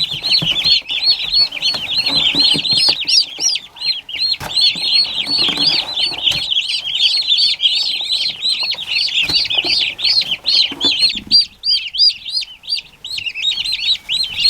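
A box-load of day-old turkey poults peeping constantly, many short, high-pitched chirps overlapping, with a few light knocks and rustles as they move about.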